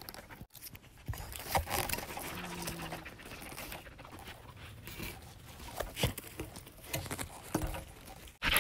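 A dog panting close by, amid scattered rustles and knocks as the phone brushes against tree branches.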